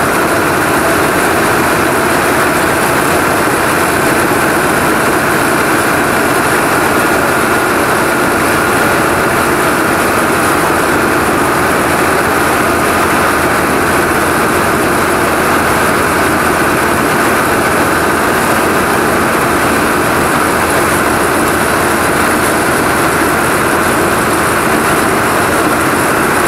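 Combine harvester running steadily and loudly, engine and machinery with the unloading auger engaged as it pours grain into a truck.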